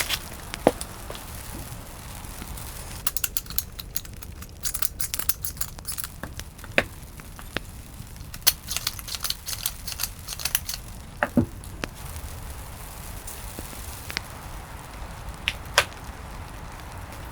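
Food-preparation handling noises: crinkling of packaging with scattered sharp clicks and taps, in two busier spells about three and about nine seconds in.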